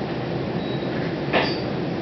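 Steady running rumble heard inside a Matangi electric multiple unit carriage as the train travels along. One short sharp sound with a brief high squeal comes about one and a half seconds in.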